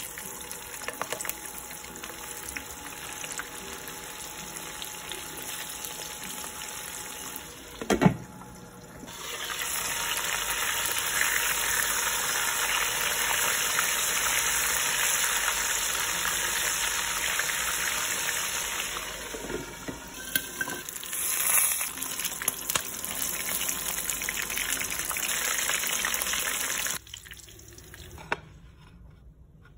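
Floured milkfish pieces frying in hot oil in a wok: a steady sizzle with spattering pops. A sharp knock comes about eight seconds in, after which the sizzle grows much louder, then it falls away sharply near the end.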